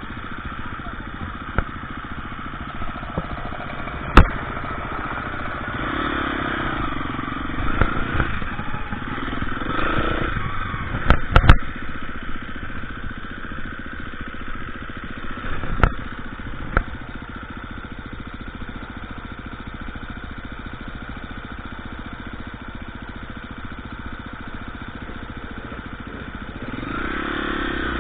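KTM EXC 350 dirt bike engine running, the revs rising and falling for the first several seconds, then settling to a steadier, lower note before picking up again near the end. Sharp knocks come about 4 s in, a cluster around 11 s, and another near 16 s.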